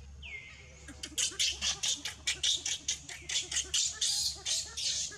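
Baby macaque crying loudly: a short falling squeal, then from about a second in a rapid run of shrill screams, about five a second. It is a weaning cry, the baby screaming for milk as its mother pushes it away from her teats.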